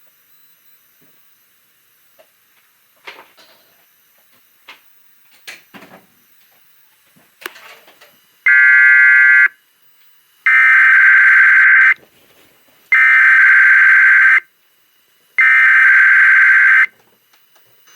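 Emergency Alert System SAME header: loud bursts of shrill, buzzing digital data tones, four in a row about a second apart, marking the start of an alert test. Faint scattered clicks come before them.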